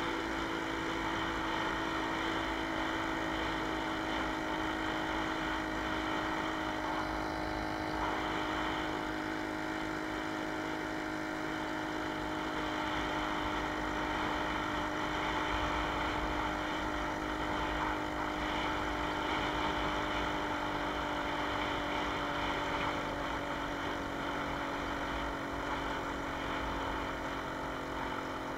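Jawa 20 Pionýr moped's 50 cc single-cylinder two-stroke engine running steadily under way, heard from on board, its pitch easing down slightly over the half-minute.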